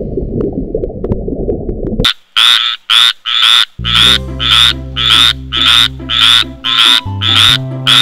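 Tree frog calling: a regular series of loud croaks, about two a second, starting about two seconds in. Before the croaks there is a low rumble, and soft background music with held low notes comes in about four seconds in.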